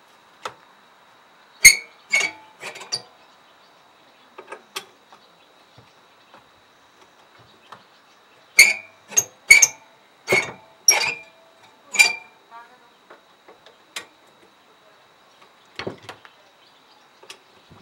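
Sharp metallic clinks and ticks from a screwdriver working at the steel side plate and adjustment screws of an AL-KO 380 HM Soft Touch reel mower, some ringing briefly. There are four close together a couple of seconds in, a few faint ticks, then a louder run of six in the middle.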